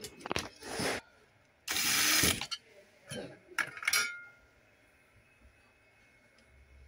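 Electric screwdriver driving screws into a power supply's casing in short runs: four bursts in the first four seconds, the longest and loudest about two seconds in.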